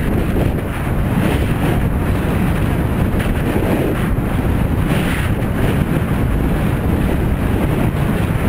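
Wind buffeting the microphone of a bicycle-mounted camera while riding along a road: a steady low rumble.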